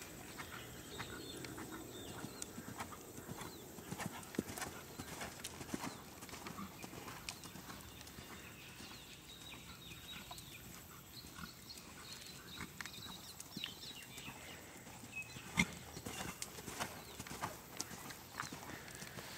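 A ridden horse's hooves beating softly and unevenly on sand arena footing, with one sharper knock late on.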